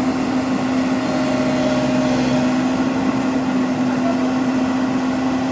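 Komatsu PC130 excavator's diesel engine running steadily with a constant hum, a fainter higher whine wavering in and out above it.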